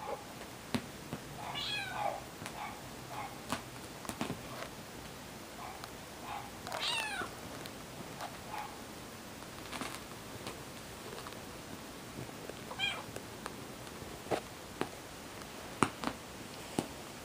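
Bengal kitten meowing several times, with high calls about two seconds in, near the middle (the longest, falling in pitch) and again later. Short sharp taps and knocks are scattered throughout, the loudest near the end.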